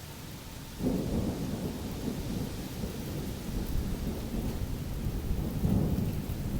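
Thunder rolling over a steady hiss of rain, starting about a second in and rumbling on, swelling again near the end.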